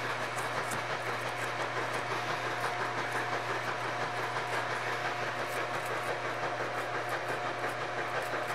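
Toothbrush bristles scrubbing a circuit board wet with isopropyl alcohol, a steady fast scratching, cleaning moisture corrosion from around the relays.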